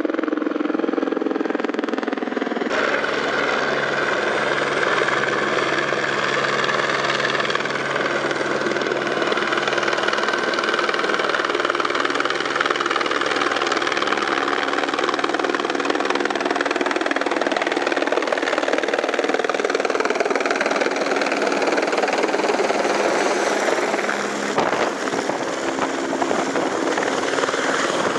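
Helicopter approaching and coming in to land, its rotor and engine running loud and steady throughout. The sound jumps abruptly twice, about three seconds in and near the end.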